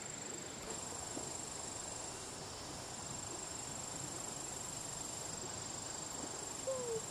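Insects chirring in a steady, high-pitched drone over quiet rural ambience. A run of short falling calls begins near the end.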